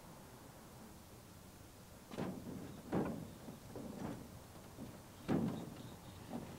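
Wooden-framed greenhouse panel knocking and bumping against the wooden frame as it is lifted and fitted into place. From about two seconds in comes a handful of short dull knocks roughly a second apart.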